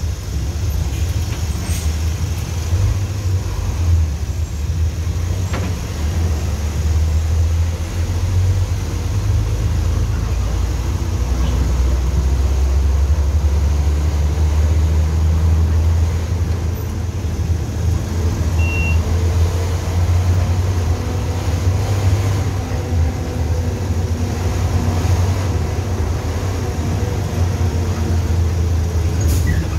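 City bus engine rumbling low and steady while the bus drives through traffic, heard from inside the bus, with the engine note climbing as it picks up speed in the second half.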